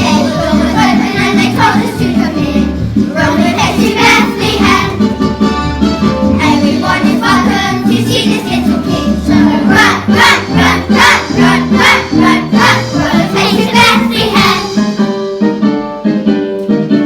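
Music: an instrumental accompaniment with children singing over it, the voices dropping out about a second or two before the end and leaving the instruments.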